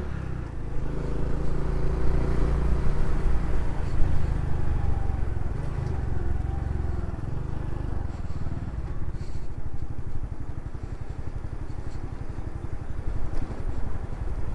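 Honda Pop 110i's small single-cylinder four-stroke engine running as the motorcycle rides slowly, its note settling into a low putter of separate firing beats about halfway through.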